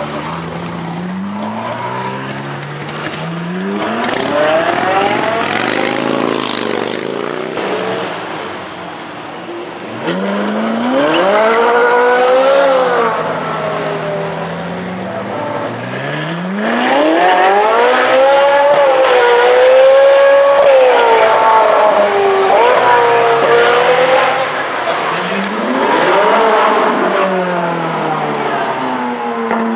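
Liberty Walk Ferrari 458 Italia's V8 running through an Armytrix aftermarket exhaust, revving and accelerating hard in about four loud pulls, its pitch climbing high and dropping back with each one.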